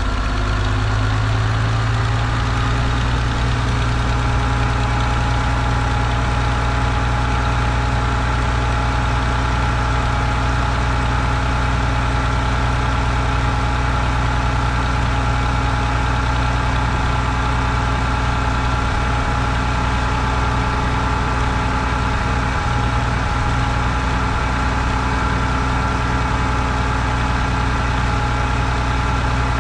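Farmall 560 tractor's six-cylinder spark-ignition engine idling steadily while warming up, just after being fitted with an electronic-ignition distributor, new coil and plug wires.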